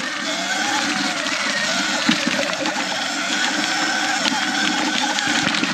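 Sur Ron X electric dirt bike's motor whining as it is ridden, its pitch rising and falling with speed, over a steady rush of tyre and wind noise on a dirt trail. A single sharp knock sounds about two seconds in.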